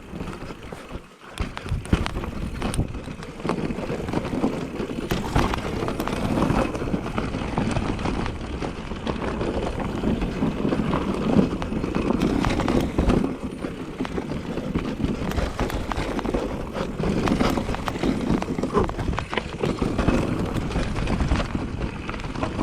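Specialized Turbo Levo electric mountain bike riding a downhill trail: a continuous rumble of tyres over dirt and rocks, with frequent knocks and rattles from the bike, briefly quieter about a second in.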